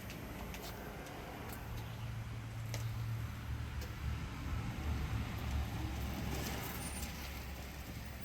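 Low rumble of a motor vehicle's engine, building up about two seconds in and easing off again near the end, with a few light clicks and knocks.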